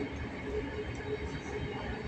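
Passenger train running, heard from inside the carriage: a steady low rumble of wheels on the track with a faint steady hum.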